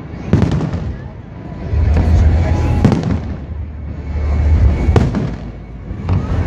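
Aerial firework shells bursting in quick succession: several sharp bangs a couple of seconds apart over a heavy low rumble from the display.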